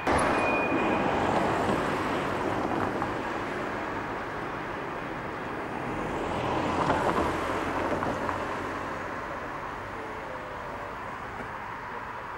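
Road traffic: cars passing on the adjacent street as a steady tyre-and-engine noise, swelling at the start and again about seven seconds in, then fading away.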